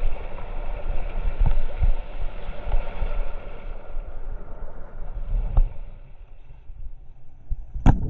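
Whitewater rushing and splashing around an inflatable kayak in a rapid, a steady rumbling wash broken by low thuds. The hiss thins out about halfway through, and there is a sharp knock near the end.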